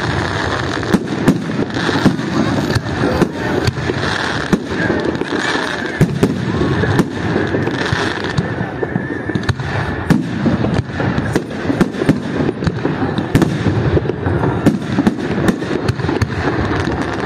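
Fireworks display: aerial shells bursting one after another, an irregular run of sharp bangs, often several a second.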